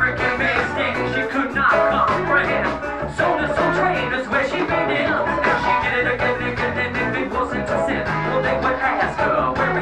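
Live band playing upbeat music with bass, guitar and a steady drum beat, a voice singing over it.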